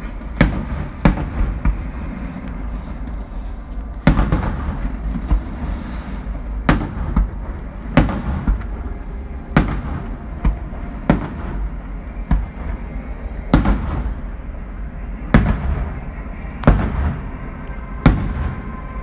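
Aerial fireworks bursting at a distance: about a dozen sharp bangs, one every second or two, over a steady low rumble.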